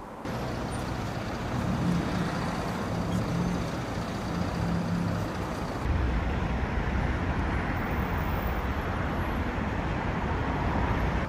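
Steady road traffic noise with a low engine hum, changing abruptly about six seconds in.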